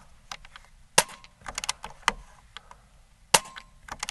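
Air Venturi Avenger .22 PCP air rifle fired twice, about two and a half seconds apart, with smaller clicks of the action being worked between and after the shots. The shots clear the plenum after the regulator has been adjusted.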